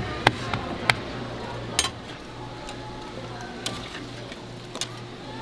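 Metal utensils tapping and clinking on a steel griddle, a patty ring mold and a metal spatula, with several sharp taps in the first two seconds and a couple of lighter ones later, over the steady hiss of meat patties frying.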